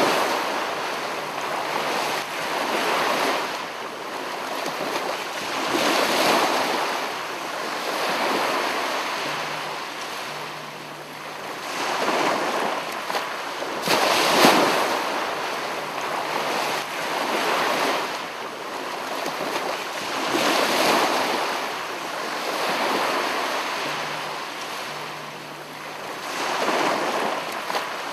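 Sea waves breaking and washing on a shore, a steady rushing that swells and ebbs every few seconds, with a stronger surge about halfway through.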